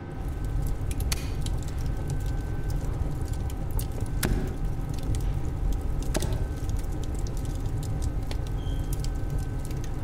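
Old-kitchen ambience of an oven fire burning: a steady low rumble with scattered sharp crackles and clicks, and occasional light metallic clinks.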